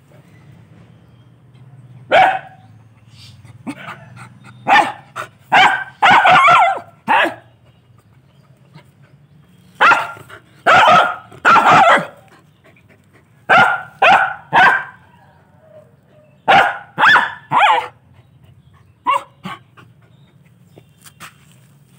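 A dog barking loudly in clusters of two to four short barks, with pauses of a second or two between clusters: territorial barking at another dog across a gate.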